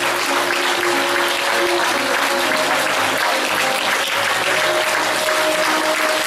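Audience applauding steadily, with an instrumental music introduction playing underneath.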